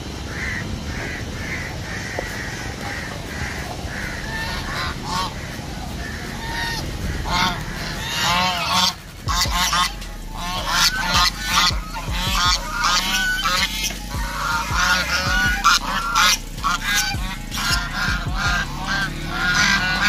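Domestic geese honking, short calls at first, then a rapid run of loud honks from about halfway through.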